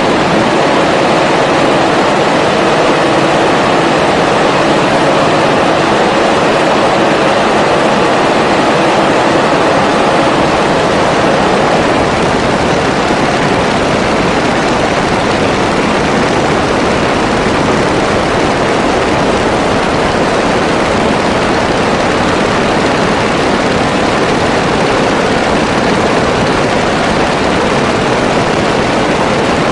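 Grumman G-164 Ag Cat seaplane's piston engine and propeller running steadily, heard as a loud, even rush with a faint engine hum in the first half.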